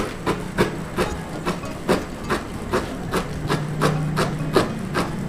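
Steel cleaver chopping carrot into thin strips on a wooden cutting board: steady knocks of the blade on the board, about three a second.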